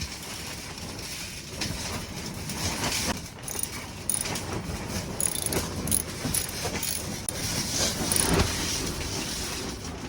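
Irregular clicks, clinks and rattles of hand tools and metal hardware as a steering wheel hub nut is threaded on and tightened.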